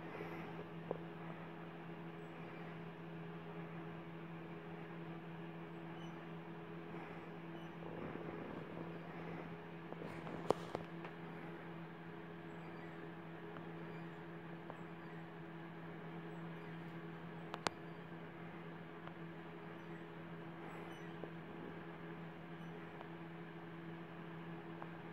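Steady low electrical hum, with a few faint clicks and a sharp tick about ten and seventeen seconds in.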